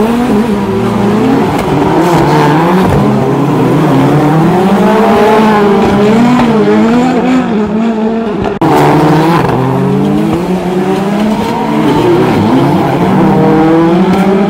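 Rallycross car engine revving up and down over and over, its pitch rising and falling every second or so, with some tyre squeal. The sound breaks off abruptly about eight and a half seconds in and picks up again at once.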